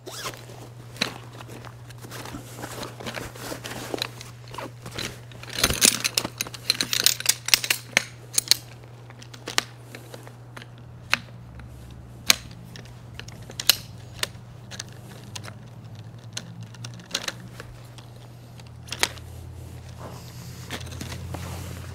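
Shock-corded aluminium poles of a compact Helinox-style folding camp chair clattering and clicking as the sections snap together and into the hub. A patch of rattling and rustling comes about six seconds in, then sharp clicks follow every second or two, over a steady low hum.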